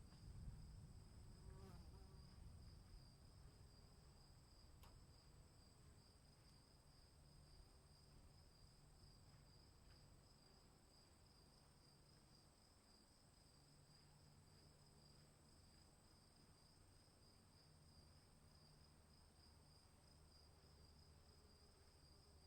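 Crickets chirping in a faint, continuous chorus: two steady high trills at different pitches, over a low rumble that is stronger in the first few seconds.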